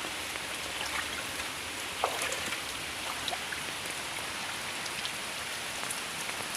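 Steady rain falling on water and the ground, with scattered sharper drops or splashes, the loudest about two seconds in.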